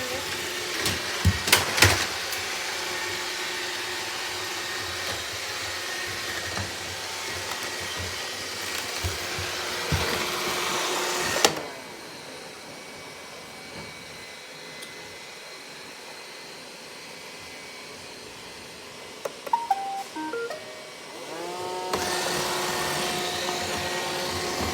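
Robot vacuum cleaner running, with a few knocks early on, whose suction motor cuts off suddenly about halfway through. After a quieter pause it plays a short falling series of beep tones, then the motor spins back up and runs steadily again.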